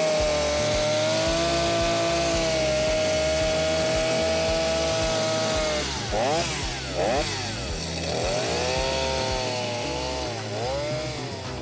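Stihl MS 250 chainsaw's two-stroke engine revving with no cut. It holds steady at high revs for about six seconds, then the throttle is blipped in a few quick rises and falls, then it revs up high again.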